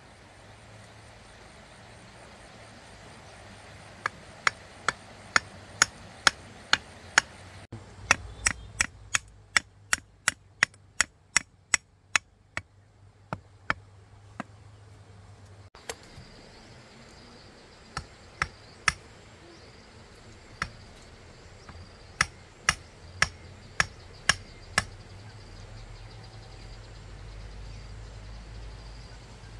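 Runs of sharp blows of a hand tool striking wood, several strikes at about two to three a second, with pauses between the runs.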